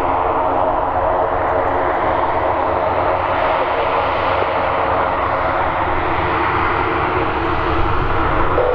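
Light piston aircraft engine and propeller of a Piper PA-38 Tomahawk running steadily at takeoff power during the takeoff roll.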